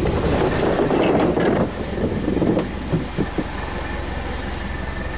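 Off-road 4x4 driving slowly on a rough forest trail, its engine running low and steady. In the first second and a half there is a louder rough rushing and scraping noise, and a few short knocks come around three seconds in.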